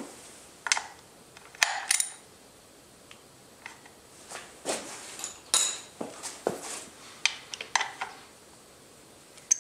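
Scattered metallic clinks and clicks of a socket and ratchet wrench being fitted onto a banjo bolt on a motorcycle's hydraulic clutch slave cylinder, about a dozen separate knocks with short pauses between them.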